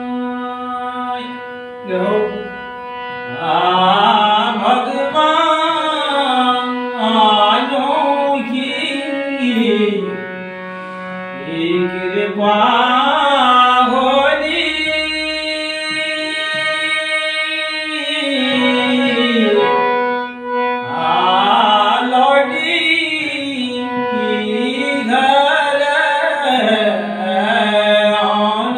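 A man singing a Kumaoni nyoli folk song solo in long, drawn-out phrases that waver and slide in pitch, over a steady drone. He pauses twice for breath, about ten seconds in and again near twenty seconds.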